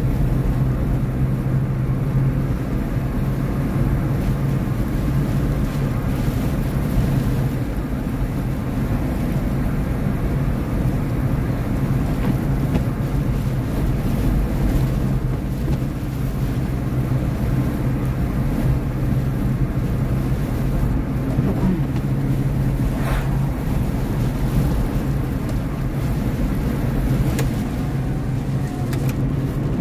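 A car driving steadily at road speed, heard from inside the cabin: a constant low engine and tyre drone.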